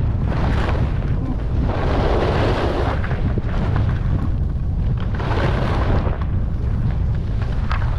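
Wind buffeting the microphone of a skier going downhill, a steady low rumble, with two longer scrapes of skis carving on snow about two seconds in and again about five seconds in.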